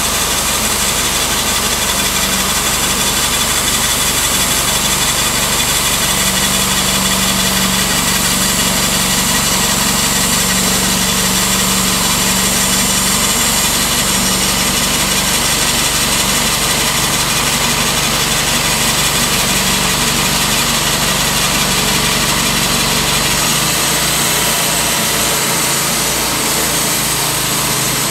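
Engine of a Timberking B-20 portable band sawmill running steadily, with its note changing near the end.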